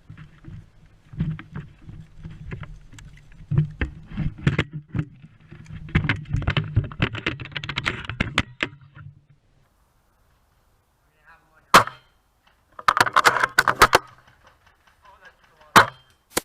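Clattering, rumbling movement noise with scattered clicks, then after a break a few sharp, loud cracks of airsoft gunfire.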